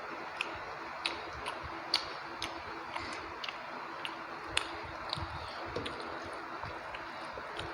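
Close-miked eating of rice with chicken curry: soft wet mouth clicks and squishes at irregular intervals over a steady hiss. The sharpest clicks come about two seconds and four and a half seconds in.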